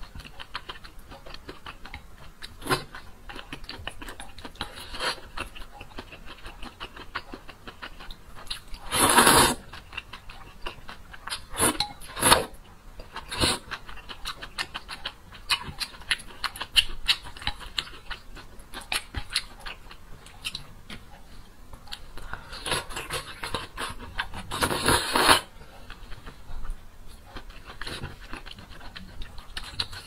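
Close-up eating sounds of a person chewing a spicy noodle soup with seafood and meatballs: many small wet mouth clicks and smacks, with two longer, louder bursts about nine seconds in and about twenty-five seconds in.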